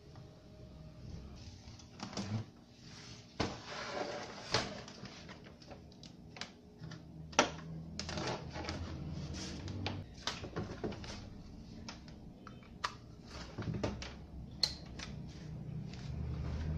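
Irregular clicks and knocks from a CRT television's plastic cabinet and tools being handled on a workbench, over a faint low hum.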